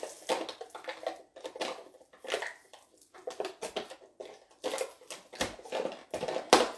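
Packaging crinkling and crackling as a plastic container of trail mix is opened by hand, in irregular bursts, with a sharper crack near the end.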